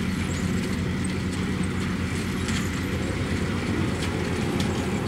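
Engine of a small rice-hauling farm tractor running steadily as it moves, heavily loaded with sacks of harvested rice.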